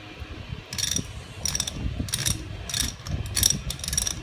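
Ratchet wrench clicking in about six short bursts as it turns the worm shaft of a Saginaw power steering gearbox.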